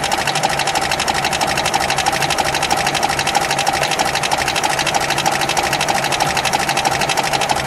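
1936 Alvis engine idling, heard close up under the open bonnet: a steady, fast, even mechanical ticking clatter.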